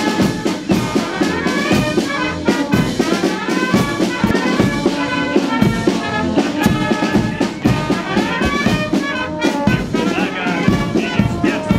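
Military brass band playing a march, with trumpets and other brass over a steady beat of marching snare drums.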